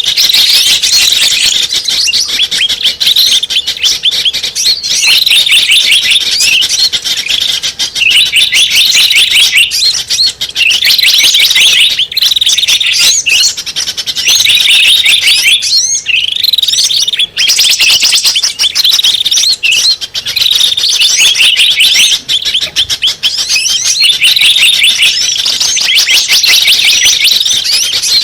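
Bird-lure (pikat) recording of many small birds chirping and twittering at once, a dense, unbroken chorus of rapid high chirps played loud to draw small birds in.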